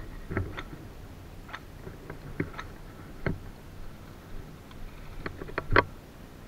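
Irregular clicks, knocks and crunches of a person moving through dry grass and brush: footsteps and gear rattling, the loudest knock near the end.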